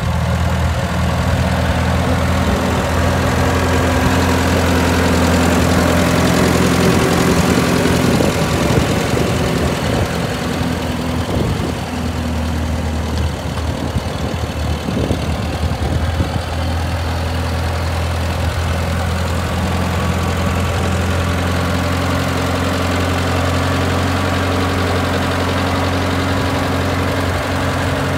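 Massey Harris 44 Standard tractor engine running steadily at low speed as the tractor is driven slowly past.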